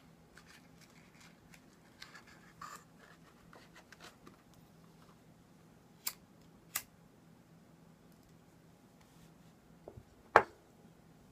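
A Bic lighter being handled and flicked: faint rustling, two sharp clicks about six seconds in, and a louder click near the end.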